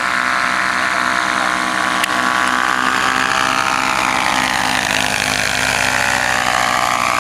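Paramotor's small two-stroke engine and rear propeller running steadily as it flies low past, with the pitch falling slightly near the end as it goes by.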